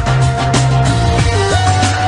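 Background music with a steady beat: a held melody line over bass and drums.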